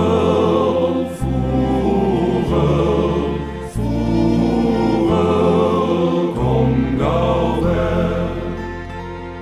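Music: a men's choir singing a slow song over a low bass line that moves to a new note every second or so, easing off a little near the end.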